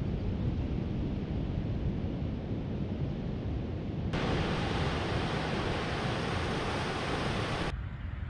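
Wind buffeting the microphone with a low rumble over the steady wash of ocean surf. About four seconds in the sound abruptly turns brighter and hissier, and shortly before the end it drops back to a duller, quieter hiss.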